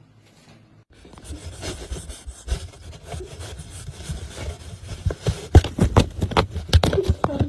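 Rough rubbing and scraping with irregular knocks, starting about a second in and growing louder toward the end.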